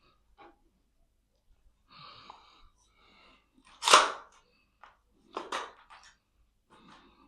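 A single loud sneeze about four seconds in, among faint scattered small noises.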